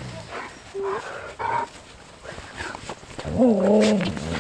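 Young Siberian huskies vocalizing while they play: a few short yips early on, then one louder, drawn-out call about three and a half seconds in.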